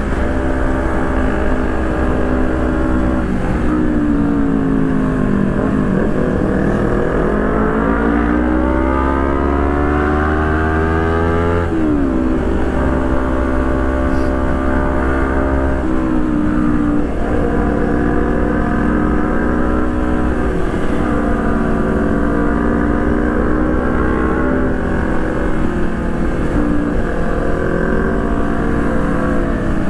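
Honda CBR250RR engine running at road speed. Its note dips, then climbs steadily for several seconds as the bike accelerates, and drops sharply about twelve seconds in at an upshift. After that it runs fairly even, with small rises and falls in revs.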